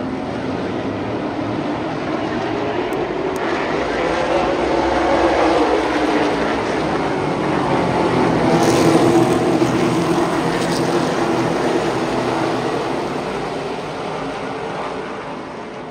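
Super late model race cars running around the track, their V8 engines swelling to a peak about midway and fading toward the end.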